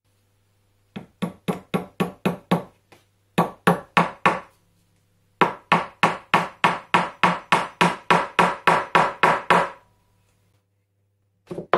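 Hammer driving small nails into a painted wooden board, fixing PTFE bearing pads to a telescope-mount base: three runs of quick blows, about four a second, each with a short ring. The longest run comes in the second half.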